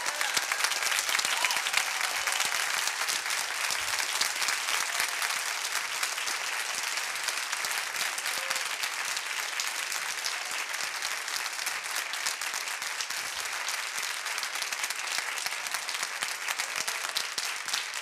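A large audience applauding: dense, steady clapping that holds at an even level.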